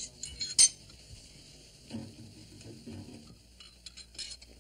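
Two drinking glasses clinked together in a toast: a sharp chink with a brief ring about half a second in. Fainter clinks and clatter of glasses and crockery follow.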